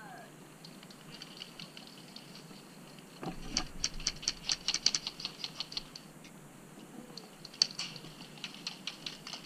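Airsoft guns firing: bursts of rapid, sharp clicks, heaviest from about three to five seconds in and again near eight seconds, with a low bump just before the first burst.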